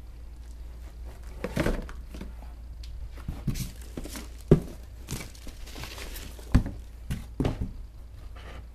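Crinkling and rustling of foam packing peanuts and shrink-wrapped product boxes being rummaged through in a cardboard shipping box, in short bursts with two sharp knocks, one about halfway and one about three-quarters of the way in.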